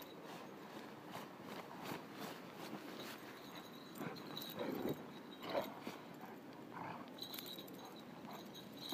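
Feet and paws crunching and scuffing through snow as a person plays roughly with a large dog, with a couple of short dog grunts near the middle.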